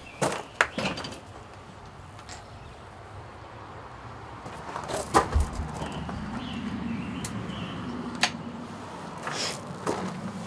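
Scattered clicks and knocks of gear being handled, several sharp ones in the first second and one about halfway through, with a faint low hum under the second half.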